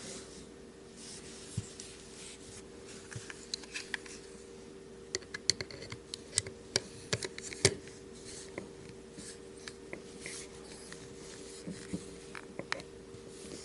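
Small sharp clicks and taps of a folding knife's metal parts and small tools being handled during reassembly, coming thickest in a cluster about midway, over a steady low hum.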